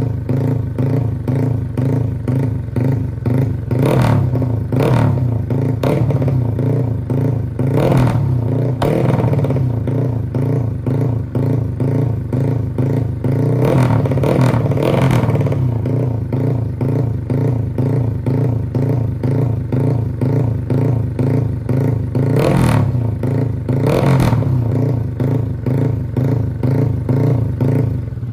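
Modified Honda Nice 125 underbone's four-stroke single, bored out to 250cc with a four-valve head, idling steadily through its exhaust, with several sharp throttle blips that rise and fall back to idle.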